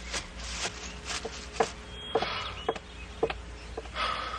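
A string of footsteps, one about every half second, over a backyard ambience of insects with a faint bird chirp.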